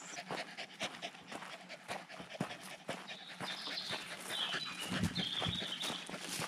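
A dog panting close by, with footsteps crunching on a path.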